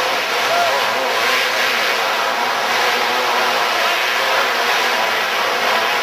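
Winged outlaw dirt karts racing, several engines running together in a steady dense wash, their pitch wavering up and down as they lap the track.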